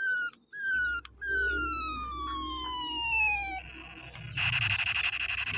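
Battery-powered toy space gun's electronic sound effects: three falling 'pew' laser tones, the last a long slide down in pitch. Then, about four and a half seconds in, a rapid buzzing rattle of rapid fire.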